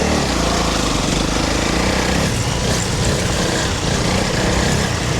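Honda CRF300 Rally's single-cylinder engine running under throttle while the bike is ridden off-road, with wind and tyre rush. The engine picks up right at the start and then holds a steady note.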